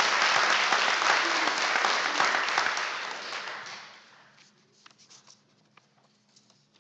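Audience applause from a crowd, tapering off and dying out about four seconds in.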